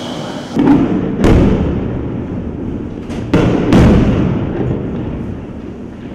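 Four heavy booms of tank and artillery fire and shell explosions. Two come in the first second and a half and two more about three and a half seconds in, each trailing off in a long rolling rumble.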